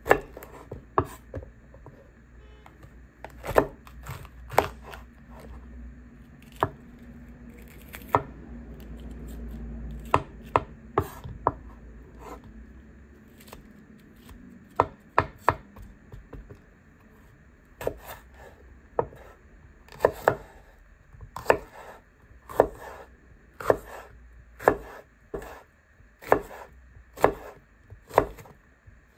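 Chef's knife cutting peppers on a bamboo cutting board: sharp knocks of the blade on the board. They are irregular at first, then settle into steady slicing strokes about one a second through the second half as the red capsicum is cut into strips.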